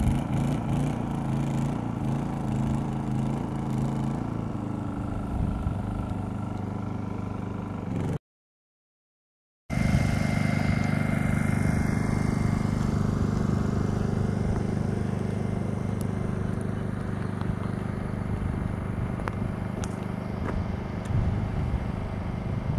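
An engine running steadily at idle, a low even hum, cut off by a second and a half of silence about eight seconds in and then resuming.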